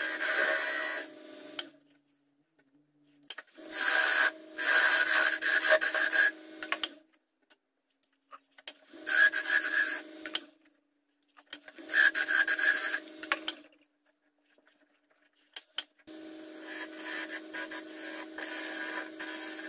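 Wood lathe spinning a small wooden box blank while a hand-held turning chisel cuts it, a steady scraping hiss over the lathe's hum. It comes in five separate stretches broken by dead silences.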